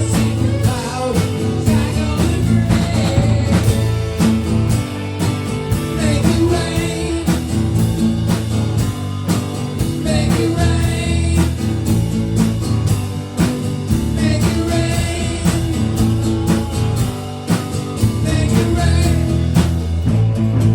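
Rock song with singing over guitar and a steady beat.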